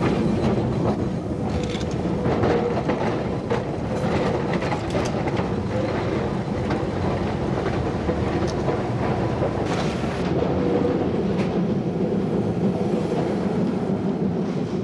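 W-class tram running on its rails: a steady rumble from the wheels and running gear, with several sharp clacks as the wheels pass over the track.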